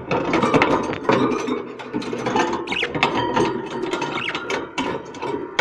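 Budgerigars chattering and warbling: a dense, clicking, grating stream of calls with a few quick whistled glides about three seconds in. This is budgie chatter used to stimulate budgies to breed.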